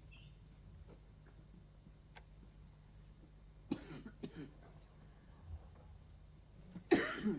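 A person coughing in a quiet room: two or three short coughs about four seconds in, then a louder single cough near the end.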